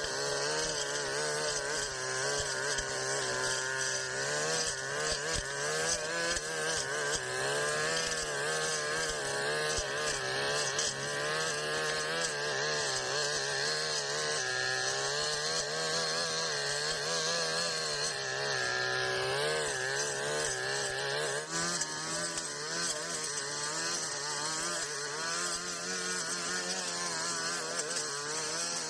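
Brush cutter engine running at high speed, its pitch wavering up and down as the cutting head works through tall grass.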